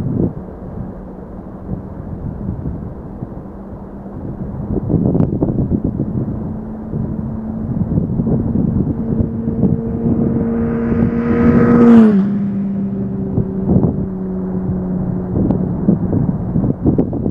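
A motor vehicle's engine grows louder as it approaches and passes close about twelve seconds in, its note dropping suddenly in pitch as it goes by, over a constant rumble of wind and road noise.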